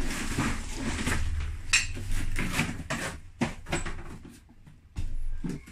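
Irregular clinks, clicks and knocks of hard objects being handled, as hand tools are picked up and sorted to open the welder's casing. It goes quiet for about a second near the end, then the clatter starts again.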